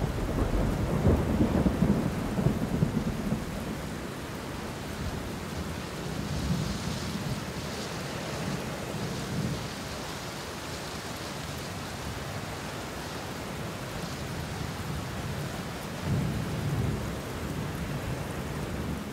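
Thunderstorm: steady rain with rolling thunder, loudest in the first few seconds and rumbling again about sixteen seconds in.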